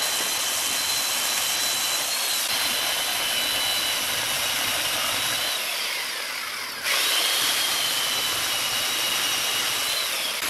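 Chainsaw cutting into a large log spinning on a wood lathe: a loud, steady power-tool noise with a high whine. The whine sags in pitch around the middle, then the sound starts again abruptly at full strength about seven seconds in.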